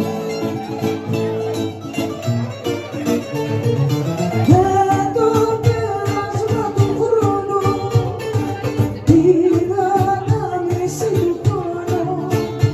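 Greek bouzouki played live with rapid plucked notes, backed by a guitar. A singing voice comes in about four and a half seconds in, sliding up into the first note, and starts a second phrase near nine seconds.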